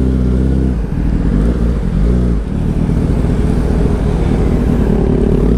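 R6 motorcycle engine running under way. Its note holds steady, dips briefly about two and a half seconds in, then picks up again.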